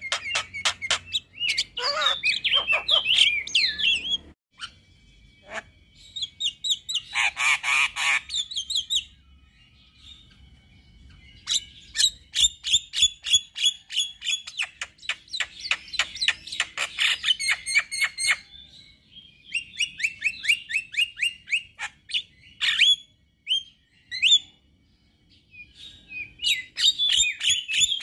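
Male Javan myna singing: several bursts of fast, rattling chatter and harsh squawks, broken by pauses of a second or two.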